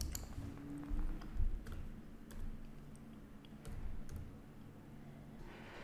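Faint computer keyboard keystrokes and clicks at irregular intervals, over a low steady hum.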